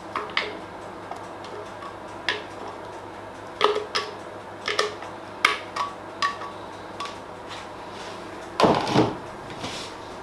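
Spatula knocking and scraping against a blender jug and a glass bowl as cake batter is poured out: a dozen or so light, irregular clinks and taps, some with a short ring, and a longer, louder clatter near the end.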